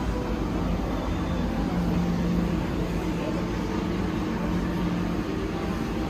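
Steady low rumble and hum of an aquarium hall, the kind made by tank pumps and ventilation, with no distinct events.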